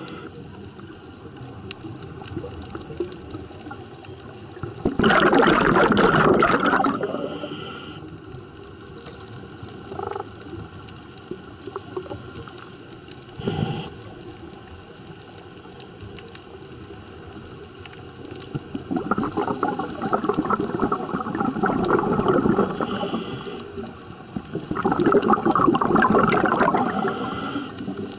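Air bubbles rushing past a camera underwater in three loud bursts of a couple of seconds each, a swimmer's or diver's exhalations. Between them there is a low underwater hiss with scattered ticks and two short knocks.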